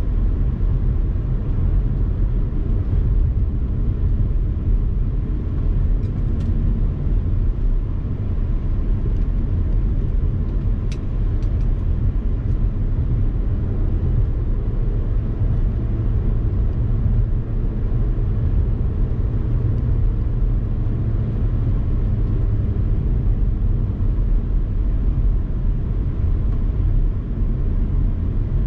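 Car driving at speed: a steady low rumble of engine, tyre and wind noise, with a few faint ticks in the first half.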